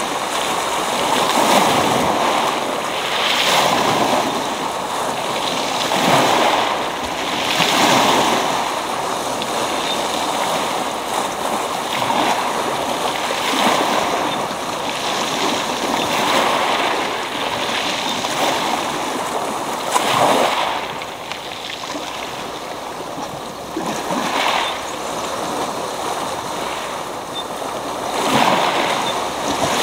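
Sea waves breaking on a pebble beach, the surf washing up over the stones and falling back, swelling and easing every few seconds.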